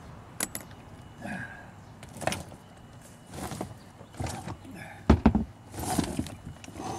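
Knocks and clatters of a hinged wooden deck lid being unlatched and lifted open, a few separate sharp knocks followed by a cluster of heavy thumps about five seconds in.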